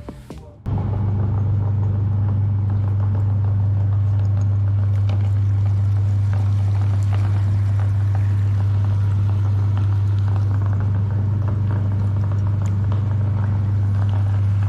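Electric meat grinder switched on: its motor starts suddenly under a second in and runs with a steady, loud low hum.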